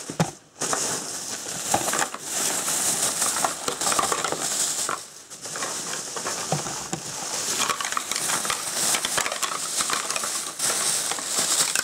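Plastic packaging crinkling and rustling while small plastic knife display stands are handled, with light clicks and clatter throughout.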